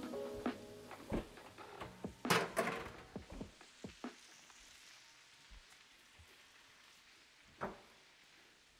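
Metal sheet pan of broccoli being handled and set into the oven: a run of clanks and knocks, loudest in a clatter about two and a half seconds in. Then faint sizzling of steaks in a pan and a single knock near the end.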